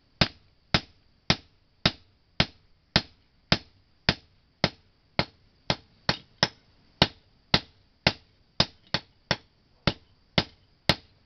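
Blacksmith's hand hammer striking a sickle blade, forging it in a steady rhythm of about two blows a second, each blow a sharp metallic strike with a short ring.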